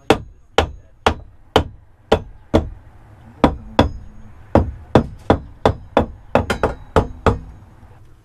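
Claw hammer striking the new metal frame rails of a motorhome's over-cab floor: sharp blows at an uneven pace of about two a second, with a quicker run of strikes about six seconds in, some with a brief metallic ring.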